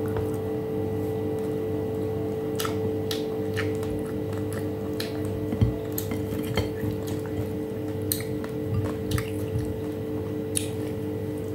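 Eating by hand: scattered small wet clicks and smacks from chewing and from fingers picking food off a plate and dipping into a glass bowl, over a steady low hum.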